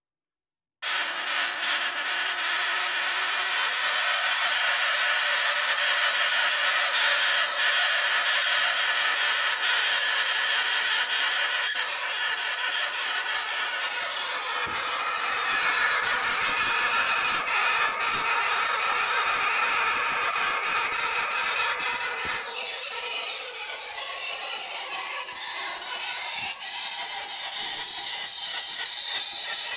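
ZVS-driven Tesla coil throwing continuous arcs: a loud, steady hiss with a buzzing whine in it, starting abruptly about a second in and easing somewhat about three-quarters of the way through.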